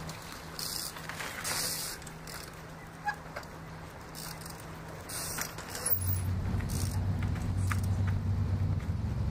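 Trials bike hopping on a boulder: short scuffs of tyres and brakes on the rock and one sharp knock about three seconds in. From about six seconds a steady low rumble sets in and is the loudest thing.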